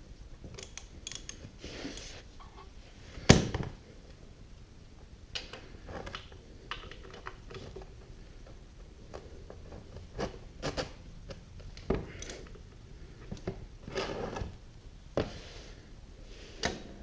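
Hand tools and metal parts clinking and knocking against the motorcycle's engine during work, a loud knock about three seconds in and a string of smaller clicks and taps later on.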